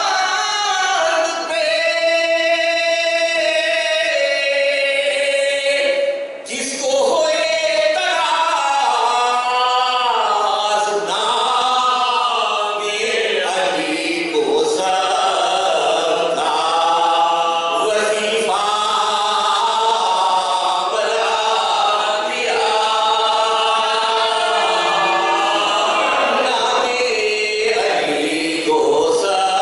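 A small group of men chanting a Shia devotional recitation in Urdu without instruments, in slow melodic lines with long held notes.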